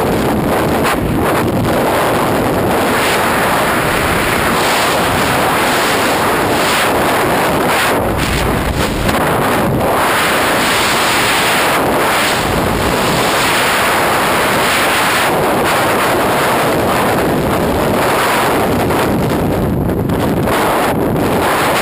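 Freefall airflow blasting over a camera microphone during a skydive: a loud, steady rush of wind noise.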